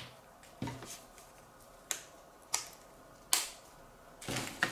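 ECG electrode pads being snapped onto the press-stud connectors of the ECG lead cable: about four short, sharp clicks a second or so apart, with some handling rustle near the end.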